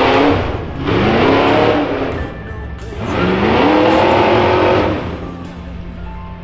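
Rock bouncer's engine revving hard in repeated bursts: three rising climbs in pitch, each cut back before the next, easing off near the end.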